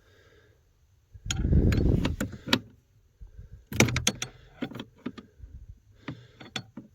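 A wrench clicking and clinking against the brake light switch's locking nut and metal bracket, a scatter of sharp metallic clicks, with a loud rustle of handling about a second in.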